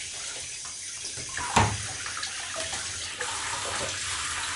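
Tap water running steadily into a bathtub with an even hiss. A single sharp knock about a second and a half in is the loudest sound.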